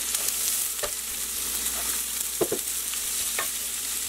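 Freshly added chopped red onion sizzling as it fries in butter and sesame oil in a nonstick pan while a wooden spoon stirs it. There are three light knocks: about a second in, about halfway through, and near the end.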